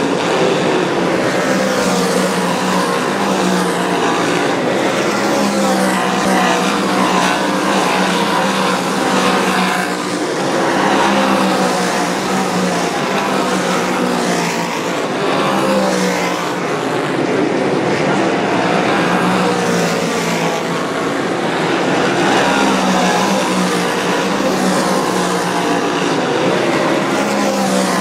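A field of dirt-track modified race cars running at racing speed, their V8 engines overlapping and rising and falling in pitch as they pass, swelling every few seconds with no break.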